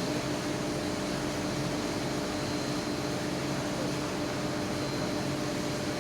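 Steady industrial machinery hum of an induction melting furnace installation, a noisy roar with several constant tones, the highest a thin whine.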